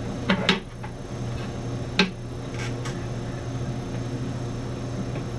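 A few light clicks and knocks: a metal plate-holder attachment is being fitted into the magnetic base of a TA Instruments DHR3 rheometer. Two clicks come close together near the start and one sharper click comes about two seconds in, all over a steady low hum.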